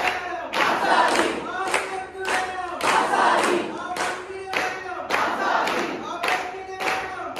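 A crowd chanting slogans in a steady, repeated rhythm: a lead voice shouts and the group shouts back in unison, with some clapping.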